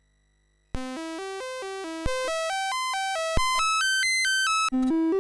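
Original MOS 6581 SID sound chip of a Commodore 64 playing the diagnostic cartridge's sound test. After a brief silence, a run of short electronic notes climbs step by step in pitch, with a few clicks between notes. Near the end it drops back low and starts climbing again.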